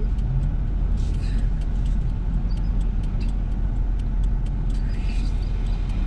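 Steady low rumble of a car idling while stopped at a red light, with a soft hiss of traffic passing on the road ahead about a second in and again near the end.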